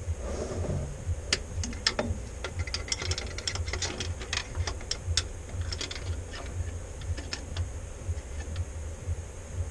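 Irregular small metallic clicks and ticks of hand work at the fuel lift-pump mounting on a Cummins 6BT diesel, bunched between about one and seven seconds in, over a steady low hum.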